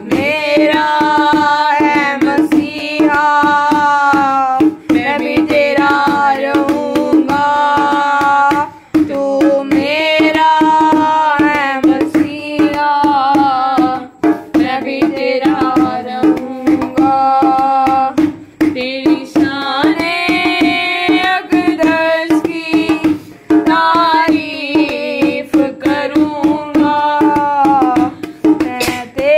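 Hindi-Urdu Christian devotional song: a singer's long, wavering phrases over a steady hand-drum rhythm.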